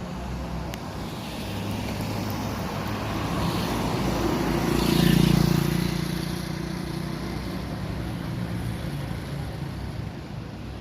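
A car passing by on the street: its engine hum and tyre noise build, are loudest about five seconds in, then fade away.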